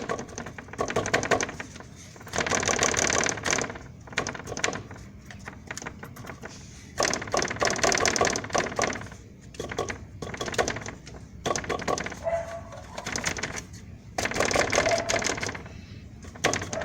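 Plastic radiator support frame of a 2011 Chevrolet Corsa Maxx rattling and clacking in about five bursts of rapid knocks. This loose plastic frame is the source of the suspension-like knocking that mechanics could not find, and it sounds like a shock absorber knocking.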